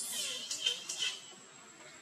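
Young long-tailed macaque screaming: high-pitched squeals, loudest in the first second with two peaks, then dying away.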